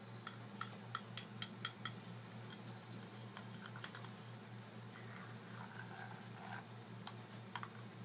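African grey parrot chicks making short clicking calls, about four a second for the first two seconds, then a few more near the end, over a steady low hum.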